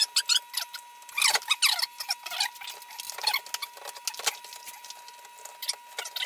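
Irregular scraping, clicking and knocking as the particle-board cabinet of a Fishman Loudbox Mini Charge amp is handled and turned over by hand, with a faint steady high tone underneath.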